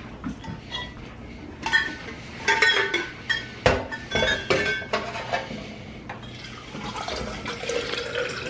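Dishes and glassware being handled, clinking: a run of sharp clinks and knocks between about two and five and a half seconds in, the loudest a knock near the middle.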